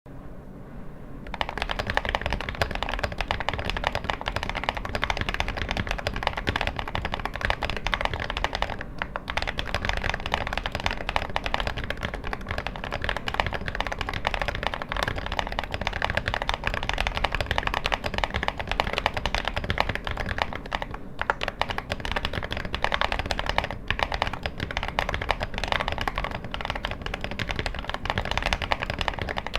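Fast, continuous typing on a custom 40% mechanical keyboard with KTT Blue Jacaranda switches and an acrylic board, a dense run of keystroke clicks that starts about a second in. The typing breaks off briefly a few times.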